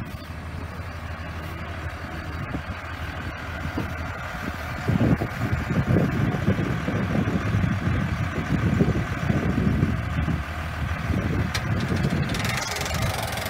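Tractor diesel engine idling steadily, with an uneven, louder low rumble joining from about five seconds in.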